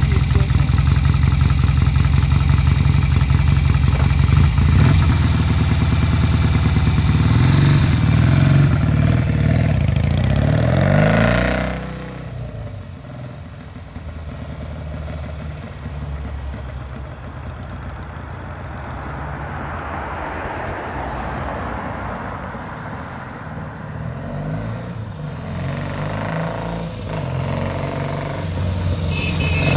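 1958 Norton Dominator Model 99's parallel-twin engine idling close by, then revving as the motorcycle pulls away; about eleven seconds in it drops off as the bike rides into the distance. It stays faint for a while, then grows steadily louder near the end as the motorcycle approaches again.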